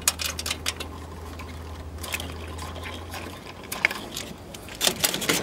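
Light clicks and rattles from a salvaged circuit card and its loose wiring being handled and tugged. A steady low hum runs underneath and stops about three and a half seconds in.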